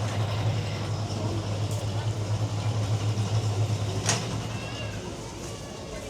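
A motor vehicle's engine running with a steady low hum that fades away about five seconds in, with one sharp click shortly before it fades, over faint street noise.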